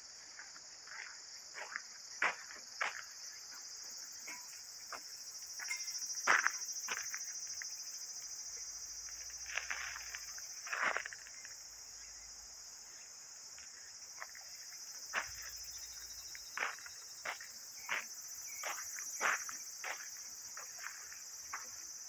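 Footsteps on a sandy dirt path, irregular steps, over a steady high-pitched chorus of insects.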